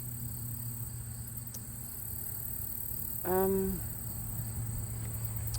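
Steady high-pitched trilling of insects such as crickets, with a low steady hum underneath; about three seconds in, a short voiced sound from a person cuts in briefly.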